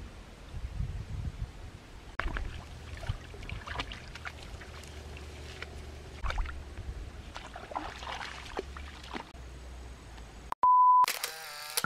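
Shallow stream water splashing and trickling as a person wades and washes in it, with scattered small splashes over a low rumble. Near the end a brief steady beep sounds, followed by a loud burst of noise.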